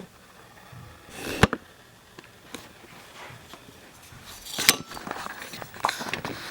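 Objects being handled: a few sharp clicks and knocks, the clearest about a second and a half in and again near five seconds, over a low background.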